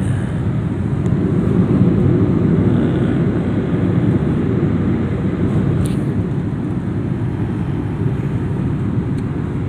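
Steady low rumble of a vehicle's engine and tyres heard from inside the moving vehicle, with one brief click about six seconds in.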